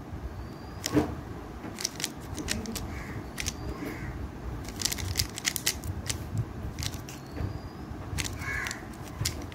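A 3x3 Rubik's cube being turned quickly in a timed solve: a run of rapid, irregular clicks and clacks as its plastic layers snap round.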